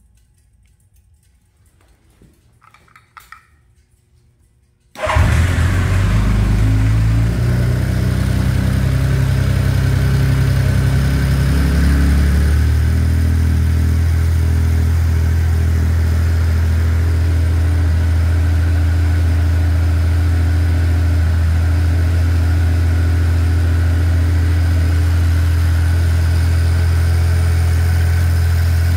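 Honda CBX air-cooled inline-six engine started from cold through its six-pipe exhaust. After a few faint clicks it fires abruptly about five seconds in and runs at an uneven fast idle, then settles into a steady idle about twelve seconds in.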